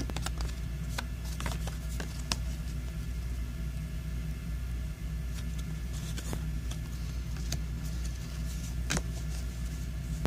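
Thin cardboard trading cards being handled: a scattering of soft clicks and rustles as cards are flipped over and slid against the stack. Underneath is a steady low background hum.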